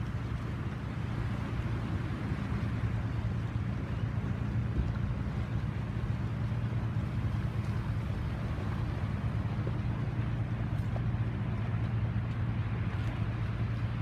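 A boat's engine running steadily as the boat moves along the river, a low hum with a steady hiss over it.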